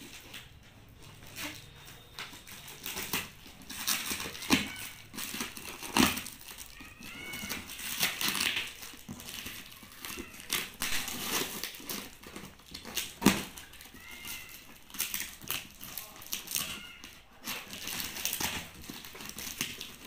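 A knife slitting and tearing clear plastic packing tape on a cardboard box: irregular crinkling and scraping of tape and cardboard, with sharp knocks about six and thirteen seconds in and a few short squeaks.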